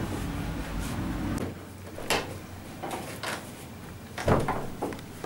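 A door being handled: a sharp click about two seconds in, a few light knocks, then a louder thump a little past four seconds as the door is shut.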